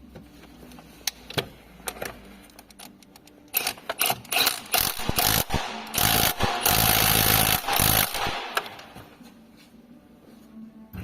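A power tool, likely an impact wrench, run in short stuttering bursts and then held for about two seconds, with scattered clicks of hand tools before it.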